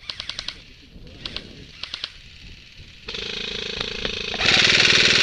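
Airsoft guns firing: a few short bursts of rapid clicks in the first two seconds, then a long full-auto burst from about three seconds in that gets much louder near the end.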